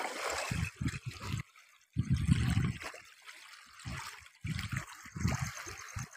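Lake water splashing and trickling at the shoreline, loudest in the first second or so, with uneven gusts of wind buffeting the microphone.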